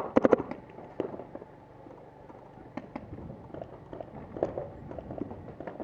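Paintball marker shots: a fast string of about half a dozen sharp pops in the first half second, then scattered quieter pops through the rest.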